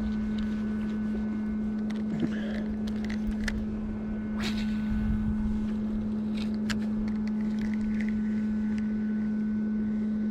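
A steady motor hum, one constant low tone, with a few scattered clicks and knocks over it.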